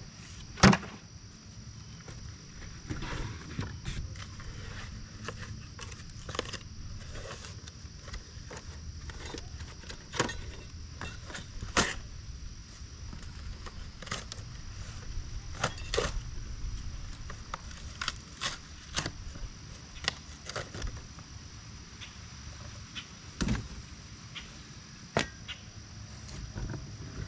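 Hard plastic mower-bagger parts and packaging being handled and set down: scattered knocks, clicks and rustles, the loudest knock just under a second in.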